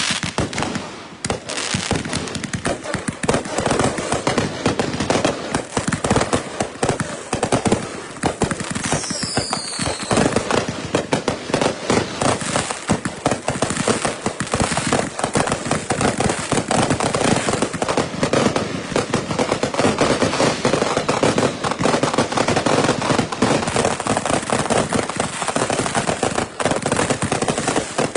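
Consumer fireworks going off in rapid, unbroken volleys of bangs and crackling. A brief whistle falls in pitch about nine seconds in.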